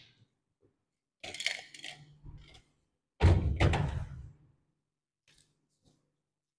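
Objects being handled and set down on a bench and a steel booth shelf: a short clatter about a second in, a loud thunk a little after three seconds with a rustle trailing after it, then two faint clicks.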